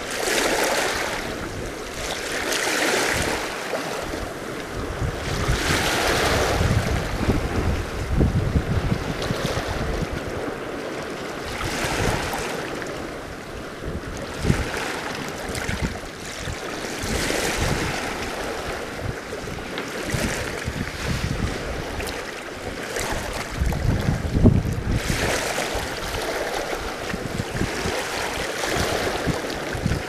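Small sea waves washing against shoreline rocks, surging and falling back every few seconds, with gusts of wind buffeting the microphone in a low rumble.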